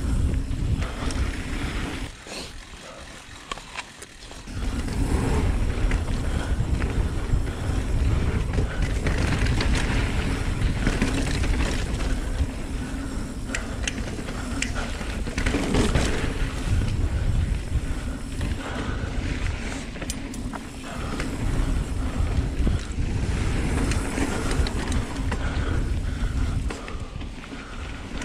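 Kona Honzo ST hardtail mountain bike riding down a dirt singletrack: a steady rumble of knobby tyres on dirt, with rattles and ticks from the bike. It goes quieter for a couple of seconds about two seconds in, then picks up again.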